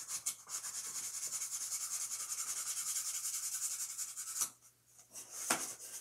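A marker scratching in quick back-and-forth strokes as it colours a cardboard toilet paper roll, stopping about four and a half seconds in. Two light knocks follow, as the cardboard rolls are stood on the table.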